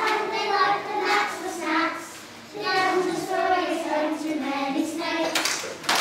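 A group of children singing together in unison, with held notes and short gaps between phrases.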